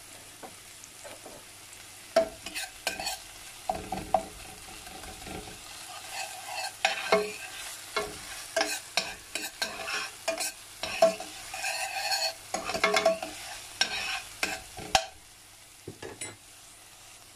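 A spoon scraping and clinking against a stainless steel pot, stirring chopped onions, green chillies and ginger frying in oil, with a light sizzle underneath. The stirring starts about two seconds in and stops shortly before the end.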